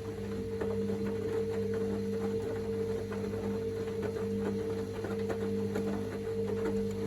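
Hoover DynamicNext washing machine running a 60°C cottons wash: the drum motor gives a steady whine with a lower hum, and light irregular clicks come from the drum turning the load.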